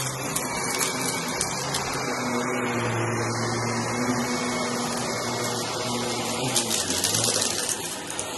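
Shark upright vacuum cleaner running steadily, its brushroll working over shaggy rugs with a crunching sound that turns into a burst of crackling about six and a half seconds in.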